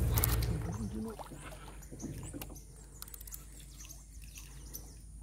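Scattered light clicks and knocks of gear being handled on a fishing kayak, with a low rumble in the first second that fades away.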